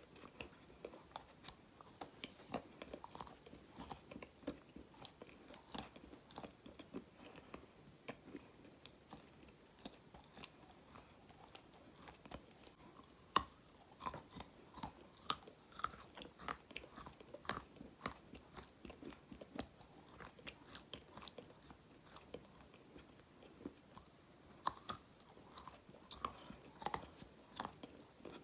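Dry black edible clay being chewed: a steady run of sharp crunches and crackles as the hard clay breaks between the teeth.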